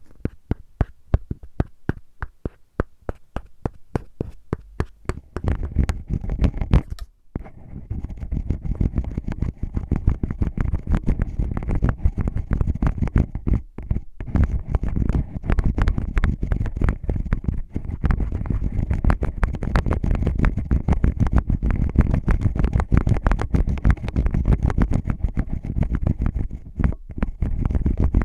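An earphone case tapped with quick, evenly spaced clicks for a few seconds, then scratched and rubbed hard right against the microphone in a dense, continuous scraping with a heavy low rumble, broken by a few brief pauses.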